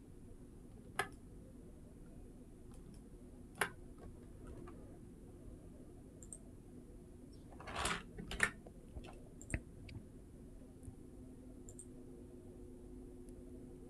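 Scattered clicks of a computer mouse and keyboard: a few sharp single clicks, with a short cluster about eight seconds in, over a faint steady hum.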